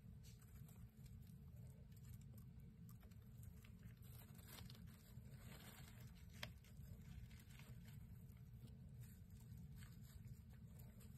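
Faint pattering, scratching and small ticks of mice moving about, with one sharper tick about six and a half seconds in, over a low steady hum.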